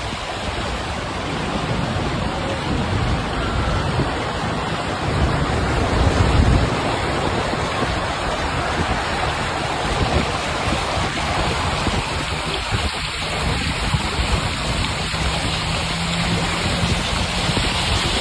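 Steady rushing of floodwater running along a street after heavy rain, with a faint low engine hum in the second half.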